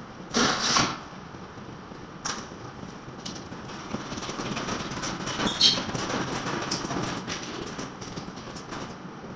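Clatter and knocks of building repair work: a loud half-second noise near the start, a few sharp knocks, and a louder stretch of noise in the middle.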